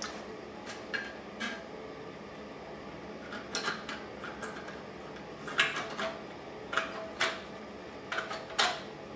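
Hand tin snips cutting a strip from thin sheet metal: a string of short, crisp snips, unevenly spaced, about a dozen in all.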